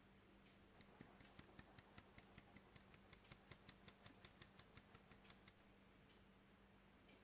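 Faint, rapid, evenly spaced light clicks, about five a second, for about four and a half seconds, growing louder toward the middle and then fading away.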